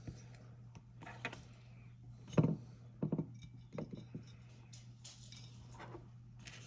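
Small metal gun parts and tools clinking and tapping against a bench and receiver while being handled: a handful of separate light knocks, the loudest about two and a half seconds in, over a low steady hum.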